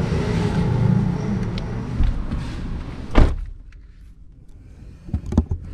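Car door being shut from inside with one solid thud about three seconds in. The outside noise is cut off at once, and a few small clicks follow in the quiet cabin.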